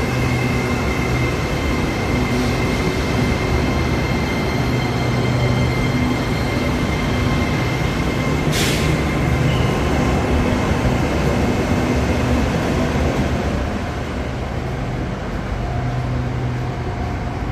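SRT Red Line electric commuter train at the platform, giving a steady low electrical hum, with a short hiss about eight and a half seconds in.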